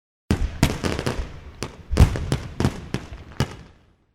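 A quick irregular series of about ten sharp bangs, each with a short echoing tail over a low rumble, the loudest about two seconds in, dying away before the end.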